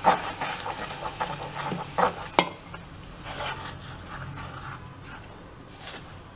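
A spoon stirring and scraping hot roasted wheat and rice flour in a metal saucepan as water is poured in, with two sharp knocks of the spoon against the pan a little after two seconds in. The water hisses on the hot flour.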